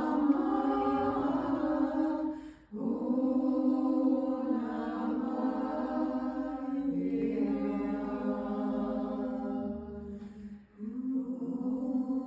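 A woman singing solo without words in long, slowly moving held notes, pausing briefly for breath about two and a half seconds in and again near the end.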